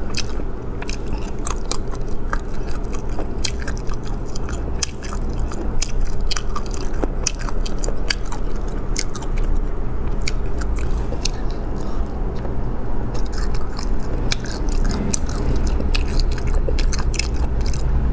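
Close-miked chewing and biting of spicy braised food, with many short wet clicks and smacks throughout, over a steady low hum.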